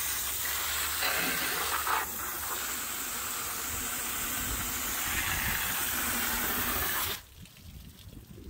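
Pressure-washer jet hissing steadily as it sprays the stripped engine bay and heat shields of a BMW E46. The spray stops suddenly about seven seconds in, leaving faint dripping and splashing water.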